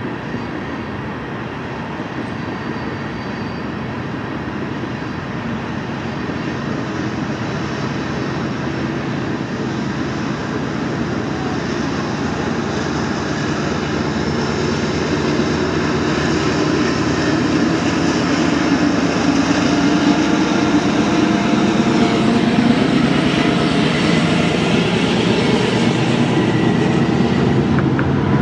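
Canadian Pacific freight train passing, its GE diesel locomotive running under power with tank cars rolling over the rails, growing steadily louder as it comes closer.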